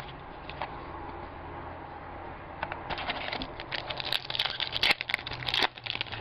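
Crinkling of a trading-card pack's foil wrapper being handled and opened: a quiet rustle at first, then a quick run of sharp crackles starting about three seconds in.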